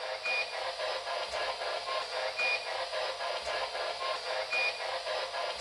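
Ghost-hunting spirit box sweeping through radio frequencies: continuous choppy radio static, with a short lower beep followed by a higher beep, the pair repeating about every two seconds.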